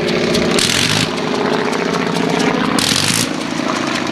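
Sopwith Camel replica's rotary engine running uncowled on the ground, propeller turning, with two short bursts of harsher, brighter noise, about half a second in and about three seconds in.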